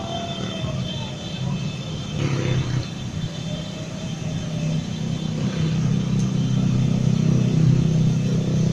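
A stream of small motor scooters riding past, their engines making a steady rumble that grows louder in the second half.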